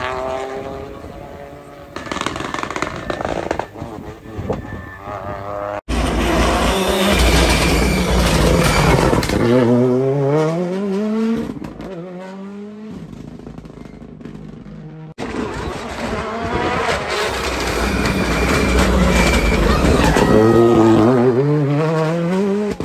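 Rally car engines revving hard as cars accelerate past on a tarmac stage, the pitch climbing and dropping back through the gear changes. The sound cuts abruptly twice between separate passes.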